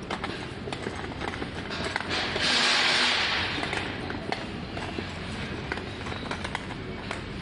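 Footsteps on a tiled supermarket floor with store background noise and small clicks throughout. A loud hissing noise starts about two seconds in and lasts about a second and a half.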